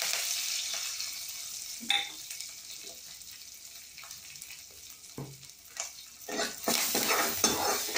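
Dried red chilli, crushed garlic and curry leaves dropped into hot oil and mustard seeds in a kadai: a loud sizzle that fades over several seconds as the tempering for rasam fries. From about six seconds in, a ladle stirs and scrapes the pan.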